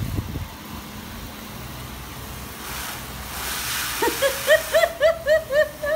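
Garden hose spraying water against a car window, a steady hiss that turns brighter about three seconds in. From about four seconds in, a child laughs in a quick run of high giggles, about three a second.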